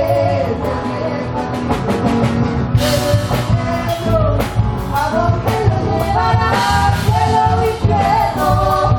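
Argentine folk group playing live: singing over instrumental accompaniment with a steady percussion beat.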